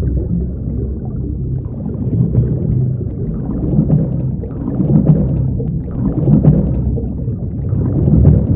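Muffled underwater rumble of scuba regulators and exhaled bubbles, swelling into repeated bubbly surges every second or so.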